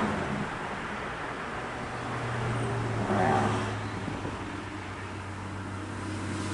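Vehicle noise: a steady low engine hum over road-like noise, swelling briefly about three seconds in, as of a car going by.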